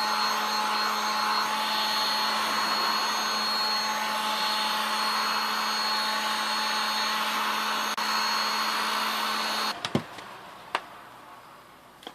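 A heat gun running steadily on low, warming the mirror glass's adhesive so the glass can be pried out of its housing. It cuts off abruptly near the end, followed by a few light clicks.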